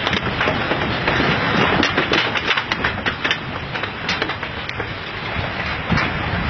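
Dense, loud rushing of the tsunami surge, shot through with many sharp cracks and knocks. The knocks are thickest in the first four seconds and thin out after.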